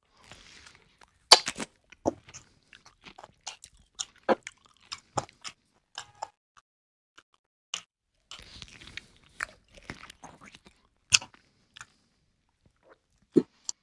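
Close-up eating sounds of a person eating chicken biryani by hand: biting into a fried chicken leg, then open-mouthed chewing with irregular sharp wet smacks and clicks, the loudest about a second in.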